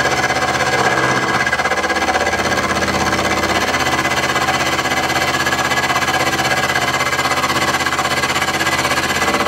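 Milling machine taking a light cut along the face of a vise jaw: a steady metal-cutting noise over the steady tones of the running machine.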